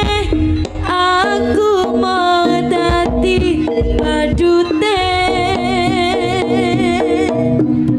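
Live jaranan music: kendang drums beat under a high melody line that bends and wavers with strong vibrato, over a steady held note.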